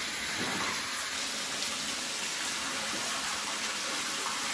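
Water gushing steadily up out of a toilet bowl and spilling over its rim onto the floor: a toilet overflowing, backed up by storm flooding.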